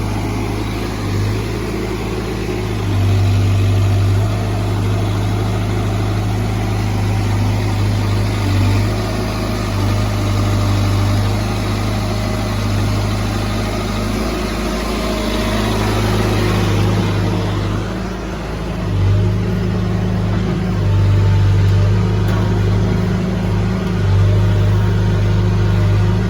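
CASE backhoe loader's diesel engine running while it works, its low hum swelling and easing every few seconds as the load changes.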